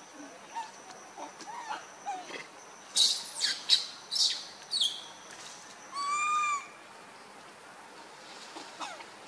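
Macaques calling in a tree: a few sharp, high, sweeping squeals about three to five seconds in, then one clear, whistle-like call lasting under a second about six seconds in.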